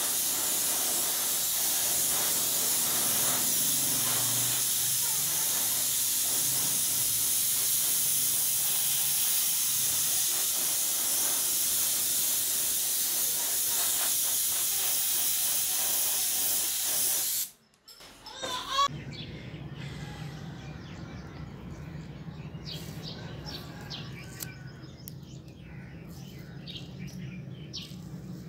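Air spray gun hissing steadily as it sprays paint, stopping abruptly about two-thirds of the way through. After it, a quieter low steady hum with scattered light clicks as the painted wrench parts are handled.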